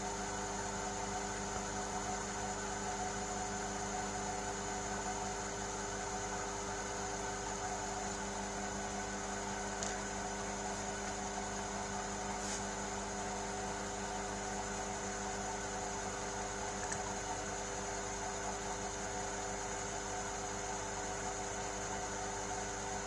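Large metal lathe running steadily: an even motor-and-drive hum carrying several constant tones and a high whine. A faint tick comes about ten seconds in and another a couple of seconds later.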